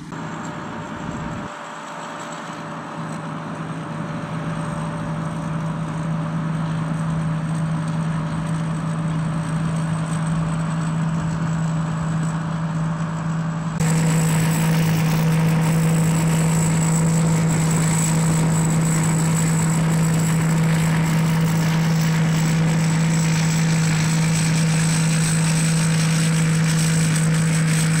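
Rice combine harvester running steadily: a constant engine drone with a thin high whine over it. It grows slowly louder over the first several seconds and steps up suddenly about halfway through.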